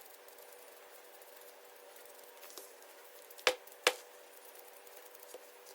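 Two sharp knocks about half a second apart, small hard objects struck on a work surface, over a faint steady hum.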